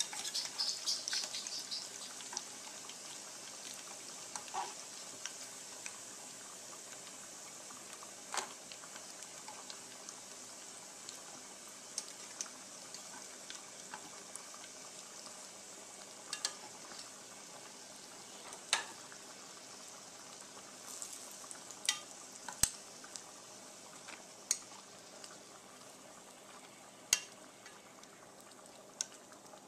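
Sweet potato fries sizzling in hot oil in a small saucepan, the sizzle growing gradually fainter. Sharp metal clicks come every few seconds as tongs strike the pan while lifting the fries out.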